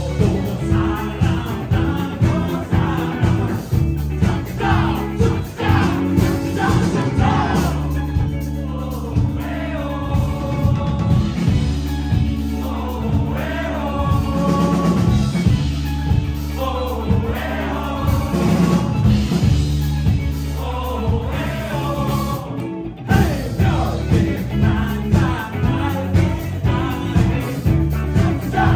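A live band playing, with singing. About eight seconds in the beat drops away and the band holds chords under the vocal line. After a brief break about twenty-three seconds in, the steady beat comes back.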